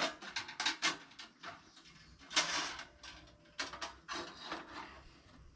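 Stainless steel portable rocket stove being handled and set up: a run of light metal clicks and knocks, a short louder scrape about two and a half seconds in, and more clicks and rubbing near four seconds.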